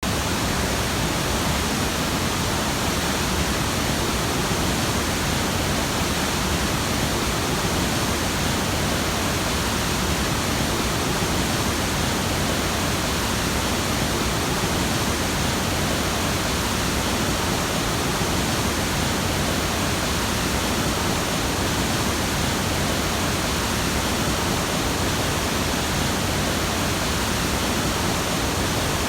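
Mountain waterfall rushing in a steady, unbroken roar of falling water.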